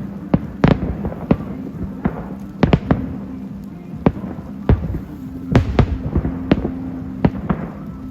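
New Year fireworks display: a rapid, irregular string of sharp bangs, more than a dozen in eight seconds, over a steady low hum.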